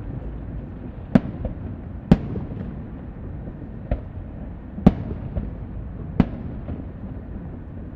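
Fireworks display: aerial shells bursting in a string of sharp bangs at uneven intervals, about one a second, over a steady low rumble.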